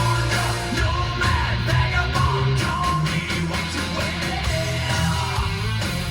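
Rock song with a singer and a heavy bass line, played loud on a 2016 Mitsubishi Montero Sport GLS Premium's factory audio system and heard inside the cabin.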